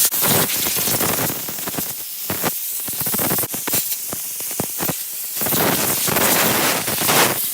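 Air blower blowing loose rust and dust off an old wrench: a loud hiss of air in a run of blasts with short breaks between them, cutting off at the end.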